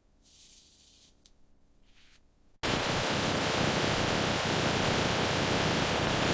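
A faint hiss, then, about two and a half seconds in, a loud, even rushing noise that starts abruptly and holds steady.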